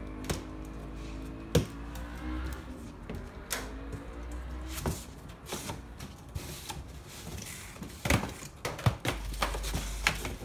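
A cardboard wheel box being slit open with a utility knife and its flaps pulled back. Scraping, rustling and a scatter of sharp knocks run through it, the loudest knock about one and a half seconds in.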